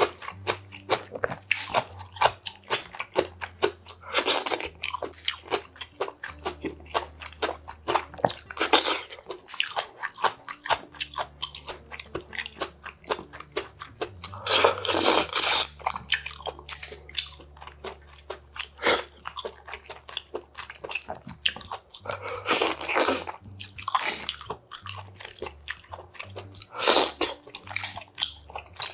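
Close-miked eating of clam sujebi, a Korean hand-torn dough soup with clams: a steady run of wet chewing and mouth clicks, with a few longer, louder slurps.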